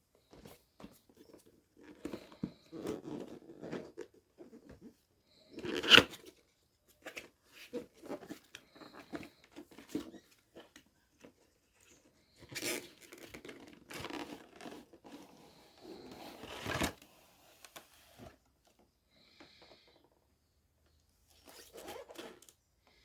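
Tablet packaging being opened by hand: intermittent rustling, scraping and tearing of box and wrapping. A sharp snap about six seconds in is the loudest sound, and another comes near the middle.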